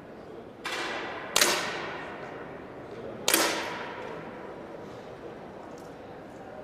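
10 m air pistols firing in an indoor range: three sharp shots, a fainter one just under a second in, then two loud cracks about two seconds apart, each trailing off in the hall's echo.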